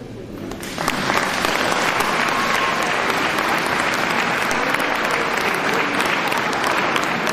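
Audience applauding, breaking out under a second in and then running at a steady level, at the end of a male choir's song.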